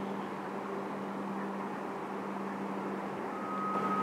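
Steady low engine hum over a wash of outdoor noise, with a thin high tone coming in about three seconds in.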